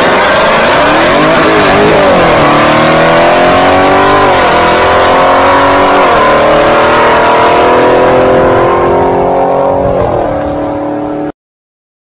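Car engine at full throttle, accelerating hard from a drag-strip launch: the pitch climbs and drops with four upshifts. It fades a little as the car pulls away, then cuts off suddenly near the end.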